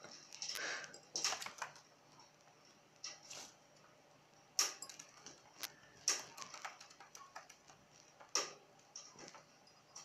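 Irregular sharp clicks and taps from cockatiels' claws and beaks as they move about a wooden tabletop and the rim of a bowl of water.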